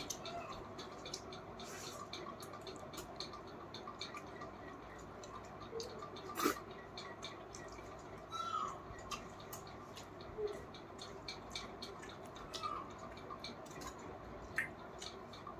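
Wet chewing and mouth smacks of someone eating a meal of rice, dal, prawns and fritters: many small clicks throughout, with one louder smack about six and a half seconds in.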